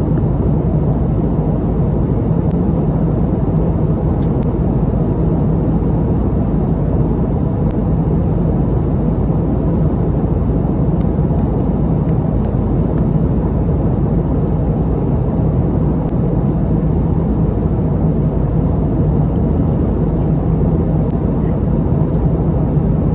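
Steady airliner cabin noise in flight: a constant rumble of engine and airflow with a low hum, and a few faint light clicks.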